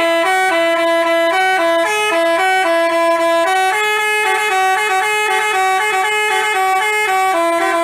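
Basuri telolet bus horn playing a tune: a loud run of held, reedy notes stepping up and down in pitch in a quick, repeating melody.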